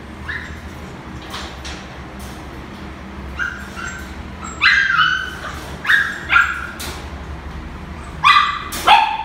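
Puppies yipping and whimpering in play: a run of short, high-pitched yips, a few scattered at first, then louder and closer together in the second half, ending with two loud ones close together.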